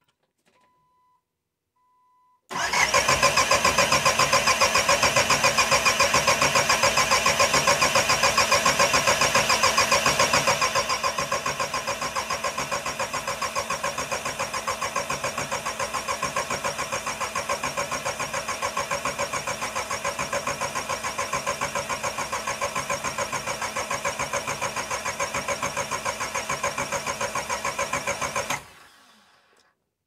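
Starter motor cranking a VW 1.9 ALH TDI diesel engine continuously for about 26 seconds, with a fast even pulsing, while the cracked injector lines are bled of air after a fuel-starvation no-start. It gets somewhat quieter and duller about ten seconds in, and stops abruptly without the engine starting.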